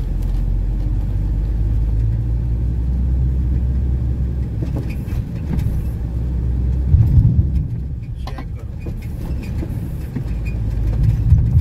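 Heavy truck's engine running as it drives, a steady low rumble that swells louder twice, about seven and eleven seconds in.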